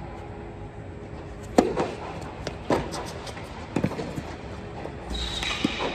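Tennis serve: the racket strikes the ball sharply about a second and a half in, ringing briefly in a large echoing hall. More ball impacts follow about a second apart, and a steady hiss comes in near the end.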